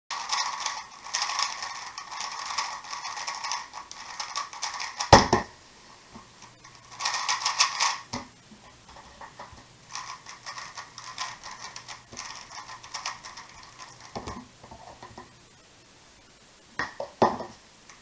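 Plastic 3x3 speedcube being turned in quick bursts, a rapid clacking of the layers, with a sharp knock about five seconds in and a few separate knocks near the end.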